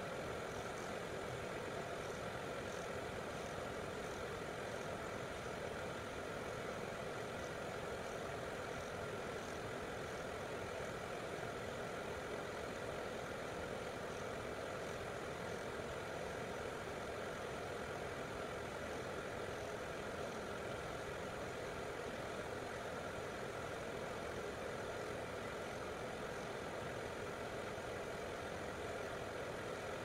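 Vevor 5 kW diesel air heater running steadily on full power: an even whoosh of its blower fan and burner, with faint regular ticks of the fuel pump.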